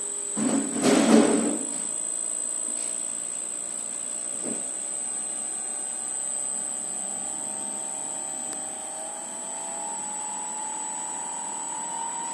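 Electric motor running from a repaired frequency inverter, with a steady high-pitched whistle. The owners say the whistle is in the motor and was not there with the original control board. A lower whine rises in pitch from about four seconds in and then holds steady, and there is a brief loud rustling noise about half a second in.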